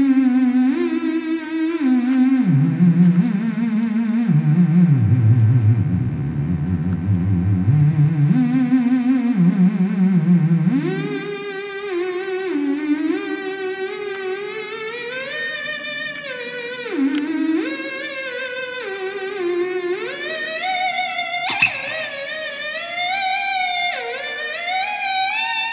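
Theremin playing a slow melody, one wavering tone that slides between notes with vibrato. It starts low and deep, dipping very low around the middle of the first half, then moves up into a higher register and plays a little more quietly, with a short click a few seconds before the end.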